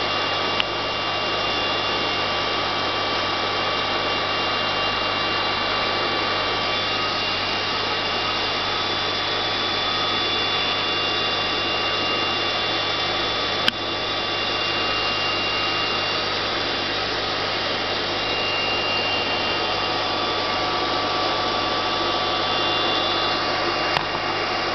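Aquarium air pump and filter running: a steady low hum over a constant rush of moving water, with a brief click three times.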